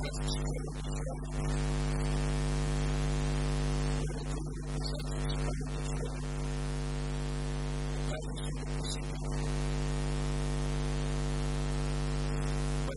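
Steady electrical mains hum with a ladder of buzzy overtones and a hiss over it, noise picked up in the recording chain.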